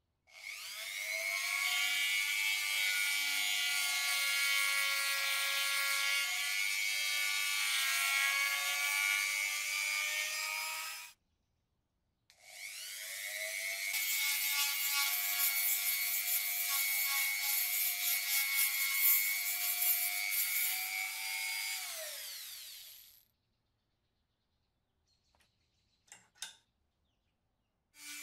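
Handheld rotary tool with abrasive attachments running against a brass cartridge-case lighter. It makes a steady high whine in two runs of about ten seconds each, and each run rises in pitch as the tool spins up and falls as it winds down. A few faint clicks follow near the end.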